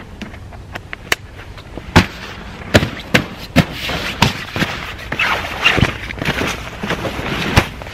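Stiff canvas poncho rustling and cracking as it is handled, folded and spread over a canvas bedroll mat: a series of sharp snaps, the loudest a couple of seconds in, then a busier stretch of rustling near the end.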